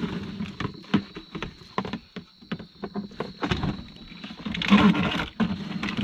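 Hollow plastic knocks and scraping as a gray plastic tote cover is handled and fitted over a portable diesel heater, in a run of irregular clunks and clicks, with a louder burst of scraping and rustling about five seconds in.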